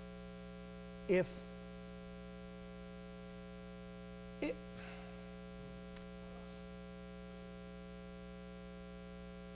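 Steady electrical mains hum in the sound system, with a short vocal sound about a second in and a briefer one about four and a half seconds in.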